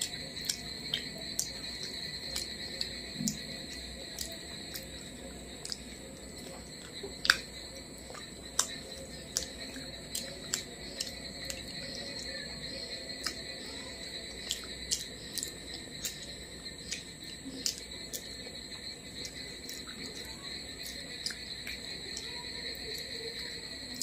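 Close-miked mouth sounds of someone eating rice and fish by hand: irregular sharp wet clicks and smacks, with one louder click about seven seconds in. Beneath them runs a steady high-pitched whine like crickets.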